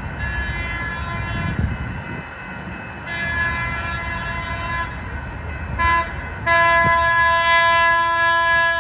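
San Diego Trolley light-rail horn giving a horn show: a run of multi-note horn blasts whose notes shift between blasts. There is a blast of about a second and a half, a longer one, a short toot, and a final long blast, the loudest, over a low rumble.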